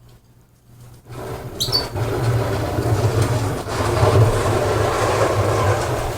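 A canary gives one short high chirp about a second and a half in, while a loud, steady rushing noise starts about a second in and keeps going.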